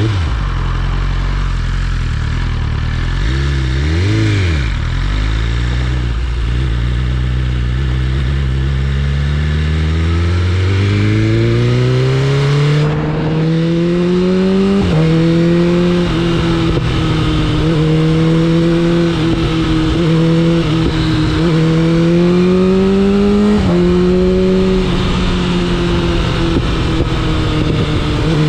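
BMW S1000RR inline-four sportbike engine, first running low and steady with a quick rev blip about four seconds in. It then pulls away, its pitch climbing, and shifts up with a sudden drop in pitch about halfway through. After the shift it cruises with small rises and falls in pitch, with another step later on.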